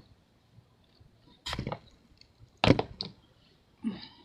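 Handling noise from a camera mount being adjusted: two short bursts of knocking and rubbing about a second apart, with a fainter brief sound near the end.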